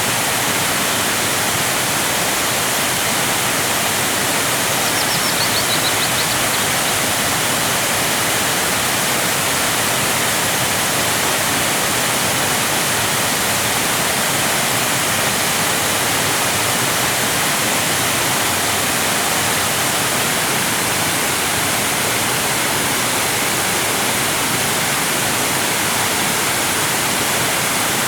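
Waterfall: water falling in a steady, unbroken rush of even hiss, strongest in the upper range.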